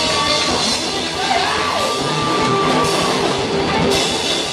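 A rock band playing live and loud, electric guitar and drum kit together, with a long held note in the middle.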